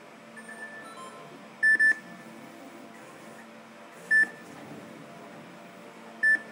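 Touchscreen controller of a Nissei NEX50 injection moulding machine beeping as its keys are pressed: a quick double beep about two seconds in, then single beeps at about four and six seconds, over a steady hum.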